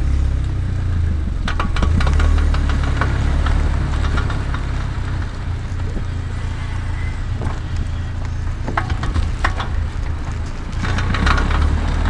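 Front-left CV axle of a MK6 VW Golf R clicking in runs of sharp clicks as the car drives on throttle through a turn, over a low rumble of tyre and wind noise. The owner is pretty confident the clicking means a bad CV axle.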